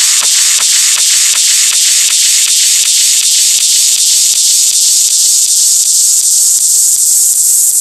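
Hard techno (schranz) track in a breakdown: a loud wash of white-noise hiss, thinning toward the treble over the first few seconds, over a faint steady beat about two and a half times a second.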